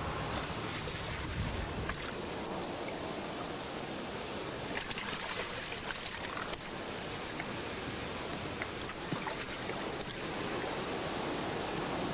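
Small waves washing and lapping against a rocky shore, an even steady wash with a few faint splashes. A low rumble sits under it in the first couple of seconds.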